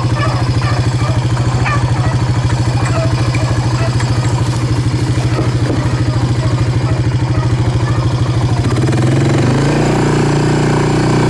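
An ATV engine runs steadily at low speed along a trail, with an even pulsing note; near the end its note changes as the throttle is worked. Beagles bay over it in the first few seconds.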